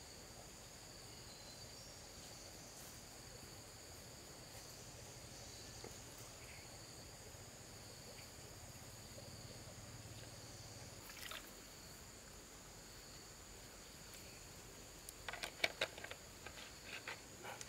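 Faint steady high-pitched insect chorus outdoors. A single sharp tap about two-thirds of the way in, then a quick run of sharp taps near the end.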